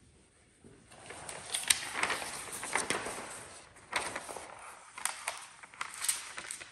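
Large translucent sheets of paper rustling and crackling as they are handled, lifted and turned over on a table, starting about a second in.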